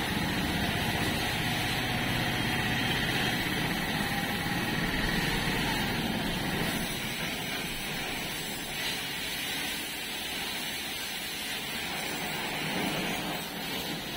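Pressure washer running, its water jet spraying onto a tractor with a steady hiss over a low machine hum that eases about halfway through.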